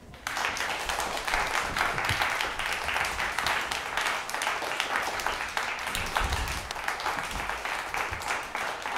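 An audience applauding: dense, steady clapping that breaks out suddenly just after the start and keeps going.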